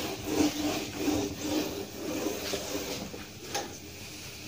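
Whiteboard being wiped clean with an eraser: a run of uneven rubbing strokes that die away about three seconds in.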